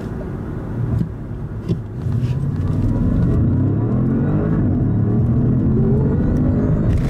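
2016 Audi S6's twin-turbo V8 accelerating hard under full throttle, heard from inside the cabin. After a couple of light clicks, the engine note rises in pitch and grows louder from about two seconds in.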